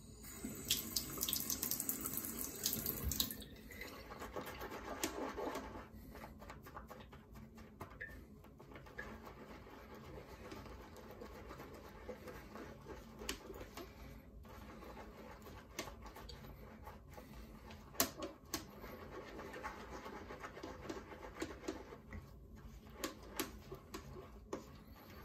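Synthetic shaving brush whipping shaving soap lather in a silicone bowl: a wet swishing with many small clicks and crackles. It is louder for the first few seconds, then goes on more softly.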